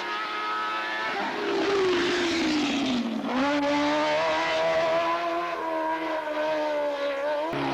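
Hillclimb race car engine at full effort. The revs fall over about a second and a half, then pick up about three seconds in and hold high under acceleration until the sound cuts off abruptly near the end.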